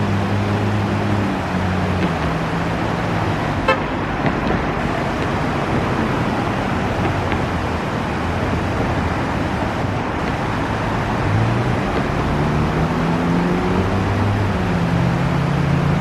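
Road traffic crossing a bridge, its engine hum rising and falling as vehicles pass, at the start and again in the last few seconds. Under it runs a steady rush of river water over shallow rapids.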